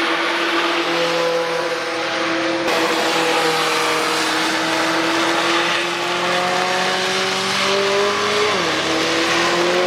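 A car engine pulling hard on the wet Nordschleife, its pitch climbing slowly, with a quick drop and renewed climb near the end as it shifts up. A heavy hiss of rain and tyre spray runs under it.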